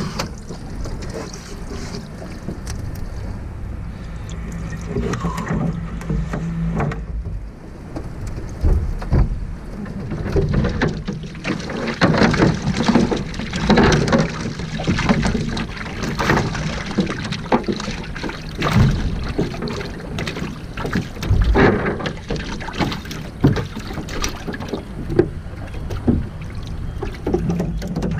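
Water splashing and dripping off a cast net as it is hauled in and shaken out over a jon boat, with irregular knocks of the net and wild shiners against the boat's floor, busiest in the middle.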